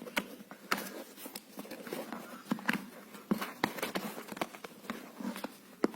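Small product box being handled and pried open by hand: a string of irregular sharp clicks and taps from the packaging.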